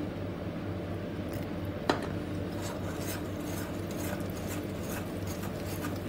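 Metal spoon stirring and scraping a thick milk-powder and water mixture in a glass bowl, with one sharp clink of spoon on glass about two seconds in. A steady low hum runs underneath.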